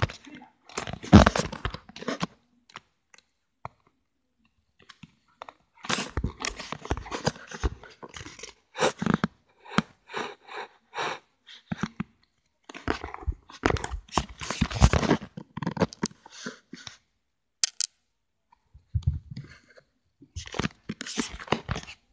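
Small dog chewing and tugging at a plush toy right at the microphone: close crunching and rustling in irregular bursts, with a pause about three seconds in.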